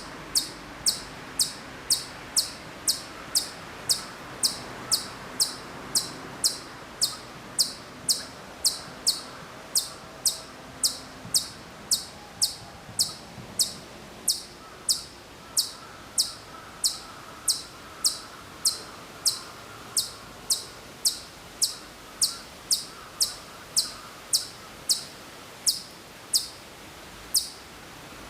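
Ezo chipmunk (Hokkaido Siberian chipmunk) calling: a steady series of short, high chirps, each sharply falling in pitch, repeated a little under two times a second.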